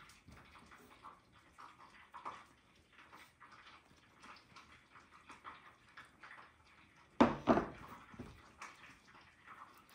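Soft handling noises as hands lift and press floured yeast-dough balls on a wooden table. About seven seconds in, a ceramic plate is set down on the table with two sharp knocks, the loudest sound.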